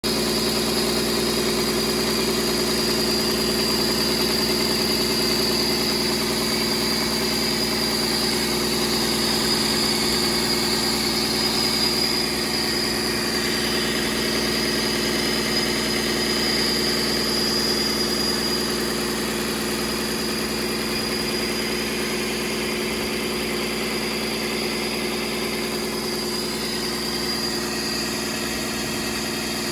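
Rebuilt Doosan DL06KB six-cylinder diesel engine idling steadily, running so oil flows to the top of the head to lubricate the valve train.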